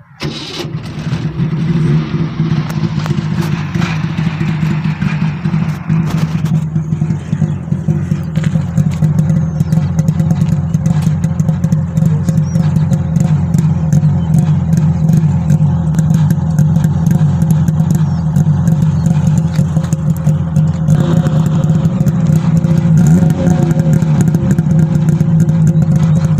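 1979 Suzuki Carry pickup's two-stroke engine starting right at the beginning, then idling steadily. It is the original, factory-sealed engine that has never been opened.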